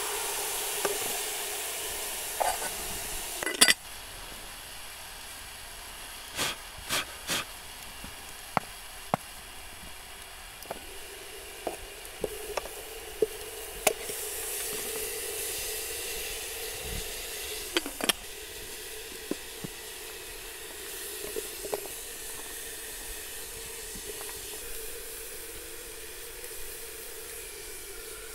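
Meat and hot stones hissing and sizzling inside a metal milk can as khorkhog is layered, a steady hiss of steam. Sharp clinks every few seconds as long tongs strike the can, the loudest about three and a half seconds in.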